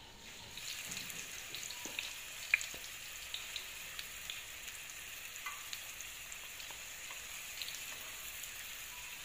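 Slices of sweet potato sizzling in hot oil in a frying pan, a steady hiss dotted with small crackles and pops, starting about half a second in.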